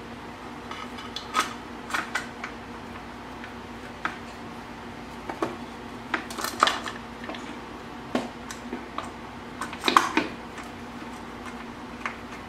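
Scattered light metal clinks and clicks, a cluster of them about ten seconds in, as washers and UFS bolts are fitted to an inline skate frame and turned in with a hex key.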